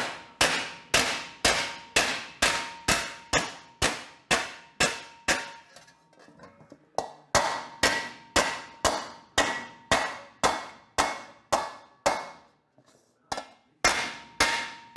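Homemade round-faced hammer striking a welded sheet-metal patch over a hollowed wooden stump, stretching the metal into a compound curve. Steady blows about two a second, each a sharp clang with a short metallic ring, stopping briefly twice.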